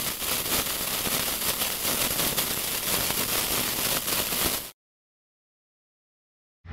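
Lit bomb fuse sizzling and crackling as it burns down. It cuts off suddenly about four and a half seconds in, as the fuse goes out.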